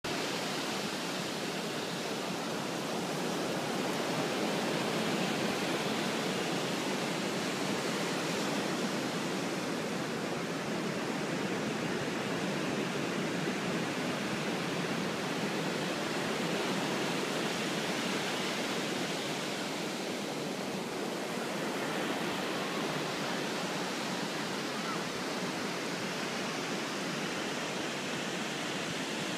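Surf breaking on a sandy beach: a steady rush of waves washing in.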